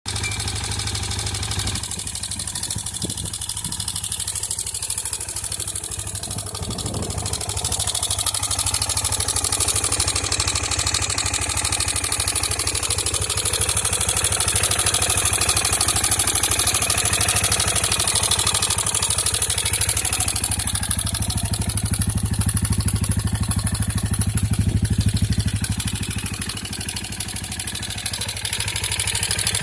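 KTM Duke II single-cylinder motorcycle engine running at idle, with loud mechanical clattering from inside the engine. The owner fears the clatter means engine damage. The engine picks up a little about a quarter of the way in and dips briefly near the end.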